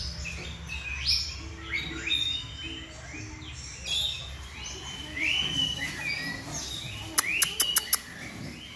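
Young Oriental magpie-robin singing in its cage: a varied string of short whistled notes and bent, rising and falling phrases. Near the end comes a quick run of about five sharp clicks.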